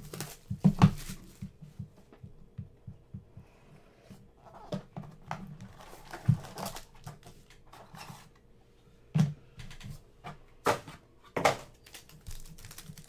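Hands unwrapping and opening a cardboard trading-card box, with scattered taps, scrapes and rustles. Near the end comes the crinkle of a foil card pack being handled.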